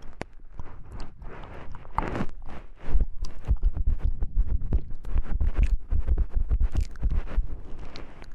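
Close-miked ASMR sounds: a dense crackle of small clicks and scrapes against the microphone, joined from about three seconds in by heavy, rapid low thumps of rubbing or handling on the mic.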